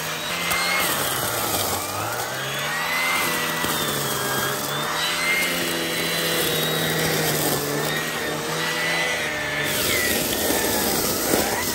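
Dyson DC07 Animal vacuum cleaner running with its mini turbine head, sucking up crushed cornflakes from stair carpet. The running pitch wavers up and down as the nozzle is pushed through the crumbs.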